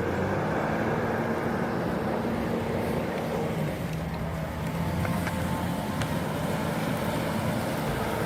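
Heavy logging machine's engine running steadily with a low hum.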